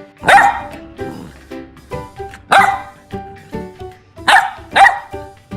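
A dog barking four times, the last two close together, over background music.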